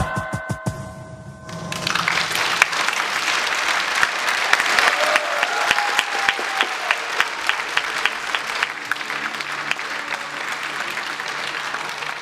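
Audience applause in a theatre. The music's final held notes die away over the first second or so, then the clapping swells. For several seconds in the middle, sharp claps fall into an even, rhythmic beat.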